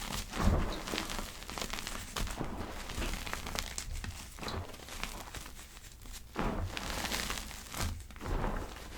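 Hands crushing and squeezing soft powder, making a dense run of soft crackles and crunches, with louder squeezes about half a second in and again after six seconds.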